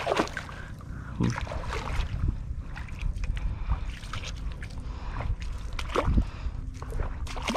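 Bare feet wading through shallow water and soft mud, each step a splash and squelch, about one a second, the loudest about six seconds in.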